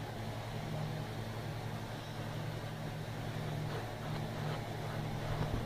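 A steady low hum fills the room, with a few soft thumps near the end as the cats pounce on the mattress.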